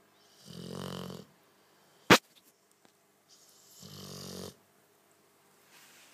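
Cane Corso snoring in its sleep: two long, rumbling snores about three seconds apart. A single sharp click falls between them and is the loudest sound.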